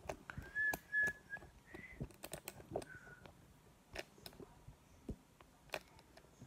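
A person whistling a few short notes in the first three seconds, one of them rising, over scattered light taps and scratches of a pen on paper.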